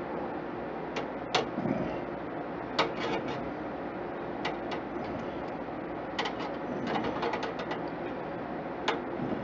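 Irregular small clicks and knocks of hands working parts inside a desktop computer case during a heatsink install. Some come singly, some in quick clusters, over a steady background hiss.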